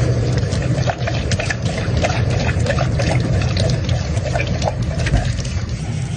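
Kitchen faucet running a thin stream onto a stainless-steel sink, a steady splashing with many small irregular splashes as a golden retriever laps at the stream.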